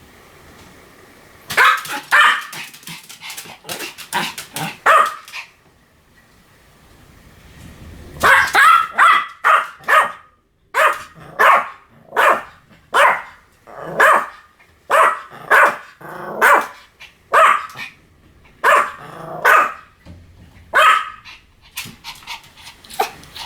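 Pomeranian barking: a quick cluster of barks, a pause of a few seconds, then a long run of single barks at about one a second.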